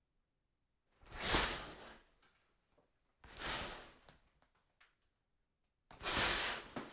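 A shower curtain pulled along its rod three times. Each pull is a quick swish of fabric and sliding rings about a second long, trailed by a few light clicks.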